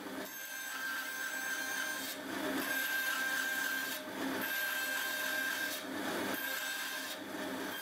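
Bandsaw running and cutting a thin strip of ash, its steady high whine broken every second or two by the rougher sound of the blade biting into the wood.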